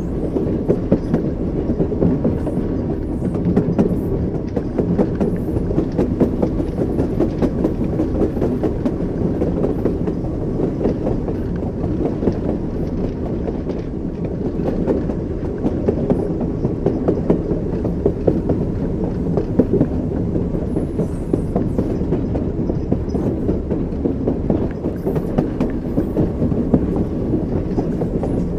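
Train wheels clacking over rail joints as the train runs steadily, over a continuous low rumble from the carriages.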